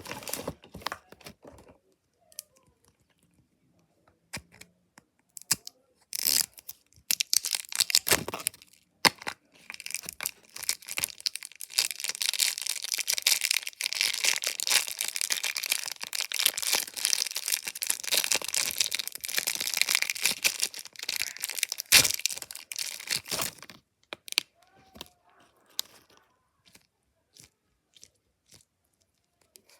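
Packaging being handled, torn and crinkled by hand close to the microphone. There are a few sharp clicks at first, short bursts of rustling, then a long stretch of continuous tearing and crinkling from about ten seconds in to near the end, after which only light taps remain.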